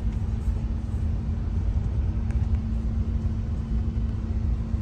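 Steady low rumble of a car driving on an unpaved road, heard from inside the car, with a steady hum under it.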